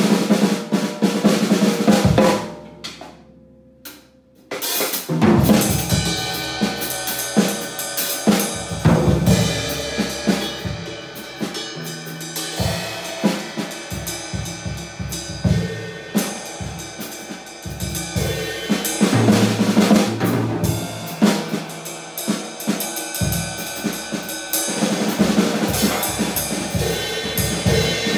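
Drum kit being played: snare, bass drum, rolls and rim shots. The playing stops about two and a half seconds in and starts again about two seconds later.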